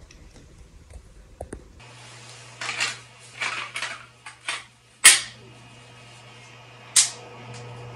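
Hands handling the robot leg's wiring and a plastic power connector: short rustling and scraping sounds, then two sharp clicks about two seconds apart.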